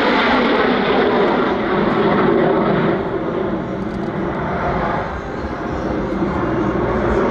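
A fixed-wing aircraft flying overhead, its engine noise a loud steady roar that eases a little midway and then builds again.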